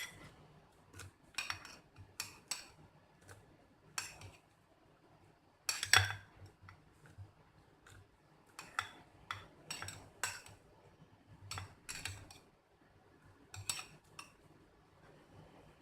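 Cutlery clinking against a ceramic mug in irregular, sharp taps, about one a second, as noodles are stirred in the mug.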